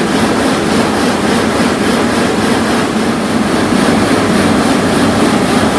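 Multi-blade gang saw cutting a marble block under a water spray: a loud, steady machine noise mixed with the splash of falling cooling water.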